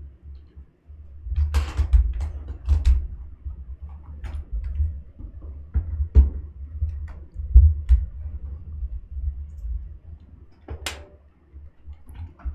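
Irregular clicks, knocks and dull bumps of a laptop being handled and moved about, with one sharper knock near the end.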